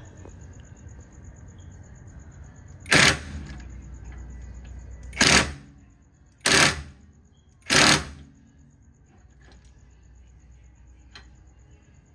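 Cordless impact wrench hammering in four short bursts, the first about three seconds in and the rest a second or two apart, working on a bare van wheel hub. A steady low hum runs underneath.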